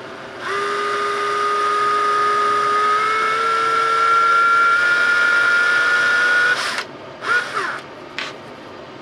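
Cordless drill whining steadily as it bores a small hole into a turned wooden hedgehog, its pitch creeping up slightly about three seconds in. It stops shortly before seven seconds, then gives a brief burst that winds down and a short blip.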